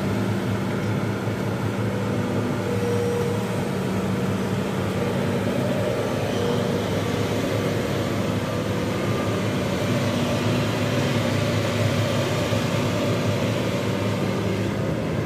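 Hitachi ZX210 long-arm excavator's diesel engine running steadily as the machine works its boom, an even, unbroken hum.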